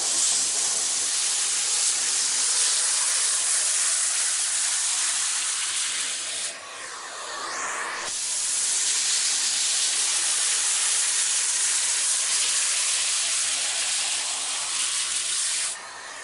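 Vacuum cleaner running, a loud, steady hiss of rushing air over a faint motor hum. About six and a half seconds in, and again near the end, the airflow dips briefly and its pitch slides, as when the suction is choked or released.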